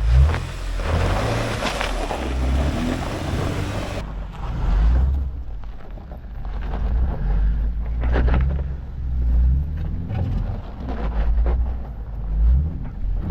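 Jeep driving slowly over a rough dirt trail: a low engine rumble that rises and falls, with scattered knocks and rattles as it goes over bumps.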